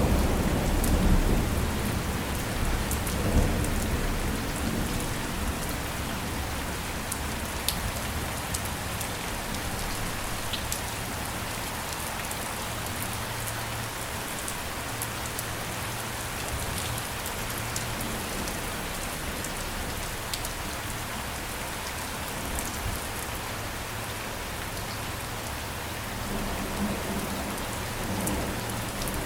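Steady rain with fine drop ticks. A low thunder rumble fades away over the first few seconds, and a fainter rumble rises near the end.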